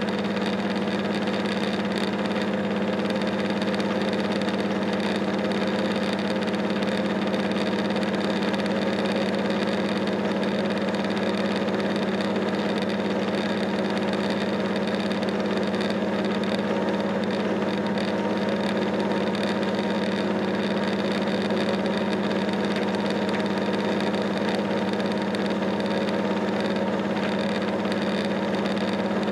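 Steady drone of a B 81500 AGC bimode railcar heard from inside the passenger cabin, its diesel engines running at an even pace.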